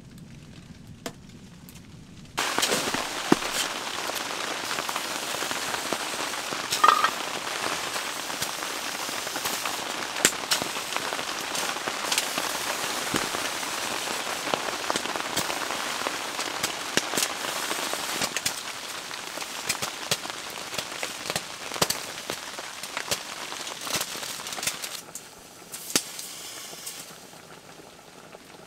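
Food sizzling in a metal pot on top of a hot wood stove: a dense hiss full of small pops and crackles that starts suddenly about two seconds in and eases off a few seconds before the end.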